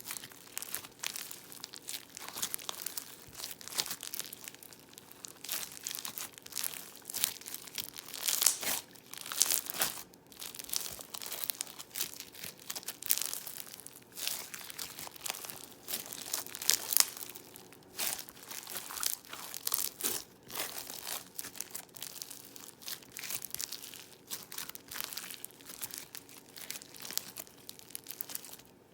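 Crunchy floam slime being worked by hand: dense, irregular crackling and popping of its foam beads and air bubbles, coming in uneven bursts and stopping just before the end.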